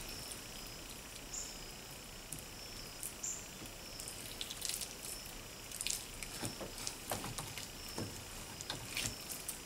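Faint wet squishing and soft scattered clicks of a knife and fingers working raw bowfin fillets on a cutting board, trimming out bones, with more of the handling sounds in the second half.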